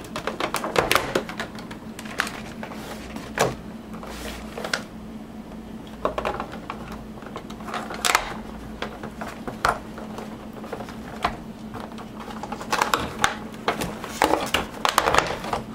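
Rigid clear plastic clamshell packaging being prised apart and handled: irregular clicks, snaps and crackles in clusters, busiest in the first second and again near the end.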